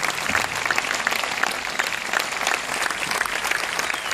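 Audience applauding steadily: many hands clapping together as a dense patter, with individual claps standing out close by.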